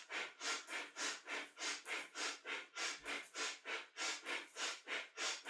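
Rapid, forceful rhythmic breathing, with sharp inhales and exhales alternating at about three breaths a second, paced to a kundalini yoga reach-and-grab arm movement.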